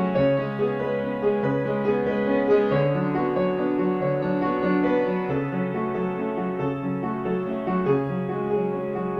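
Solo piano music, with a steady repeating figure of low notes under a melody.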